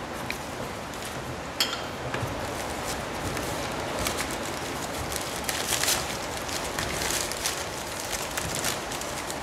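Crumpled packing paper crinkling and rustling in bursts as an item is unwrapped from a cardboard box, with a sharp click about a second and a half in, over a steady background hiss.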